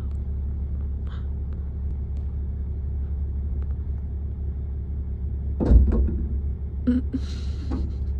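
Steady low rumble of a car on the move, heard from inside, with a loud thump about five and a half seconds in and a short scraping noise a second later.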